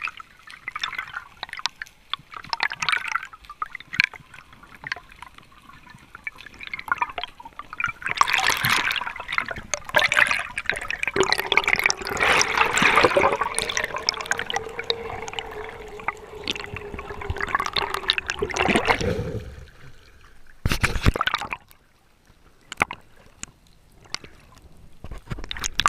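Water bubbling and sloshing picked up by an underwater camera, with scattered small clicks. A louder stretch in the middle carries a faint steady hum, and there is a short loud burst of noise near the end.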